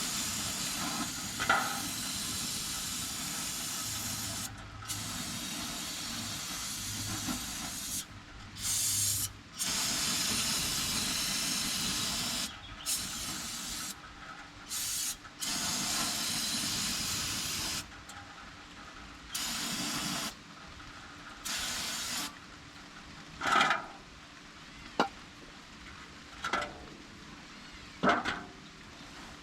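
Hissing spray coming in repeated bursts of one to four seconds, then a few short knocks near the end.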